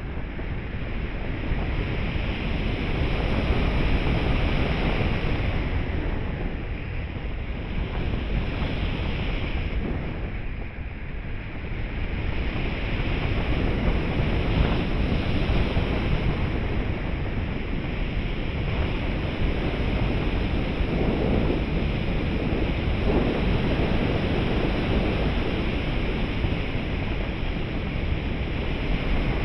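Wind rushing over an onboard camera's microphone on a 3.6 m RC glider in flight: a steady rushing noise that swells and eases, dipping briefly about ten seconds in.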